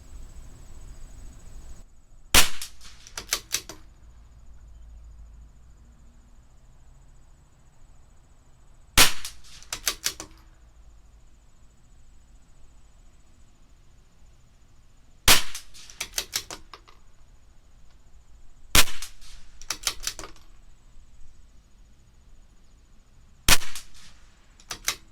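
Five shots from a CZ 457 bolt-action .22 LR rimfire rifle firing Lapua Center-X match ammunition, spaced a few seconds apart. About a second after each shot comes a quick run of metallic clicks as the bolt is worked to eject the case and chamber the next round.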